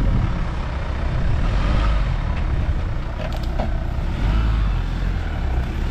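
Engine of a 4x4 off-road vehicle running steadily on a trail.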